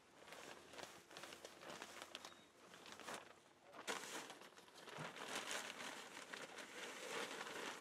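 Bag of perlite rustling and crinkling in irregular bursts as perlite is scooped out into a bucket.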